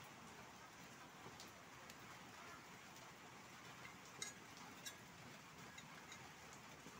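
Near silence with a few faint, light metallic clicks, the plainest a little after four seconds and again about five seconds in: a thin steel rod touching a steel plate as it is set into a slot.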